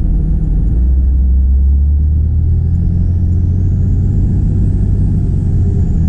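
Cummins 5.9 litre inline-six turbodiesel running, with its turbo whistle (made louder by an S&B intake and silencer-ring delete) rising faintly in pitch from about two and a half seconds in, then easing off slightly near the end.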